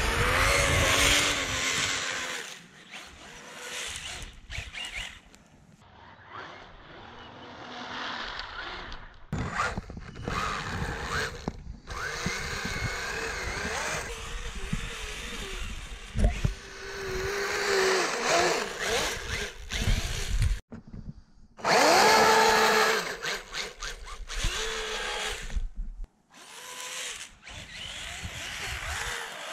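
Brushless electric motor of a 1/5-scale RC snowmobile whining in bursts as the throttle is opened and eased off, the pitch rising and falling, while its long track churns through deep powder snow. There are short pauses and abrupt breaks between the runs.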